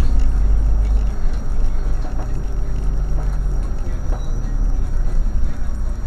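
Motor vehicle driving on a town street: steady low engine and road rumble.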